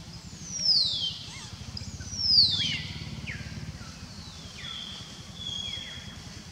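High-pitched animal calls: two loud ones about a second and two and a half seconds in, each sliding steeply down in pitch, then fainter falling calls and a briefly held high note, over a steady low drone.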